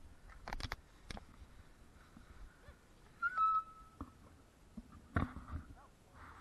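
Mountain bike rolling slowly over dirt: scattered clicks and rattles as it rides over bumps, with a short high-pitched squeal and a quick run of ticks a little over three seconds in.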